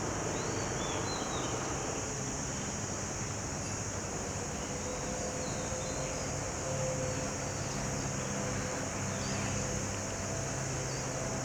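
Outdoor ambience: a steady high insect drone, a few faint bird chirps in the first seconds, and a low steady engine hum.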